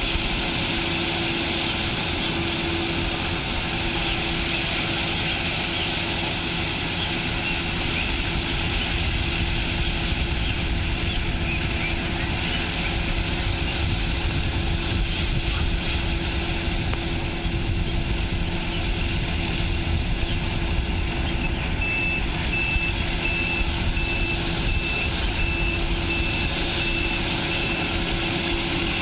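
Engine of a rice-harvesting machine running steadily with a constant hum. Near the end a series of short, evenly spaced high beeps, about two a second, sounds for several seconds.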